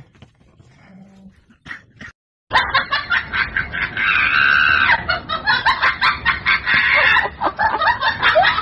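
A group of people laughing and shouting loudly over one another, starting suddenly after about two quiet seconds.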